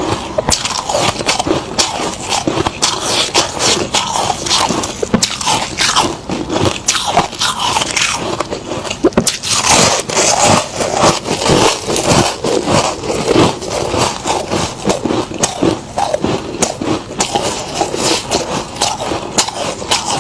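Freezer frost being bitten and chewed close to the microphone, a dense, irregular run of crisp crunches mixed with scraping.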